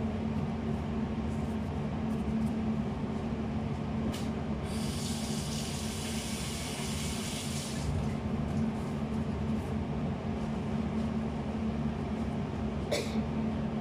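A steady low machine hum, with water running from a kitchen tap for about three seconds midway.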